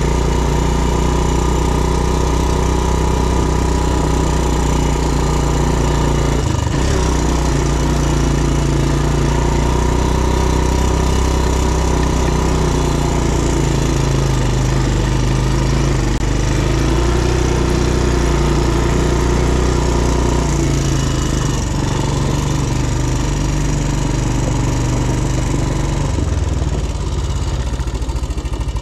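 ATV engine running steadily under way, its pitch drifting up and down with the throttle. Near the end it drops to a lower, slower pulsing run.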